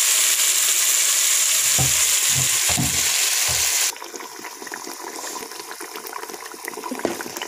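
Hot oil sizzling loudly as onion-tomato paste is scraped into a cooking pot, with a few dull knocks of the spoon between about two and three and a half seconds in. At about four seconds the sizzle cuts off suddenly, leaving a much quieter stretch of light clinks and liquid as the rinse water from the paste bowl is poured in.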